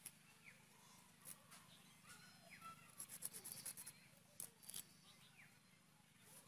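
Faint clicks and scrapes of spotted snakehead fish being cleaned against a curved boti blade, with a quick run of scraping strokes about halfway through. A few faint bird chirps now and then.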